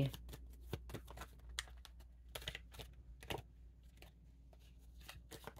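Quiet, irregular light clicks and taps of a deck of cards being handled before a card is drawn, thickest in the first three and a half seconds and sparser after.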